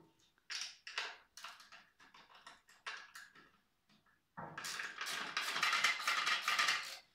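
Ratchet wrench with a 10mm socket clicking as it undoes the nut on the rear fender's last bolt. A few short bursts of clicks come first, then a rapid, louder run of clicking starts about four seconds in and lasts about two and a half seconds.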